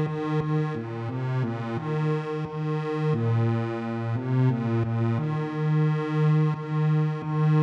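Hymn harmony played on a synthesized keyboard: block chords of steady, even-pitched notes moving together on the beat, with a few chords held longer.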